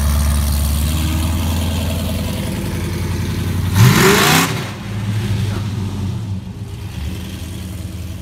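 A Pontiac GTO's V8 runs with a low, steady drone as it pulls out. About four seconds in it revs in a short, loud burst with rising pitch as the car accelerates away, then the engine sound fades.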